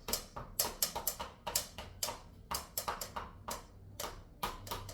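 Rapid, uneven series of sharp knocks or taps, about two to three a second.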